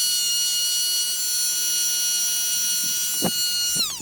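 Dremel rotary tool fitted with a small sanding wheel, its motor running at a steady high-pitched whine and winding down near the end. Two short knocks come shortly before it stops.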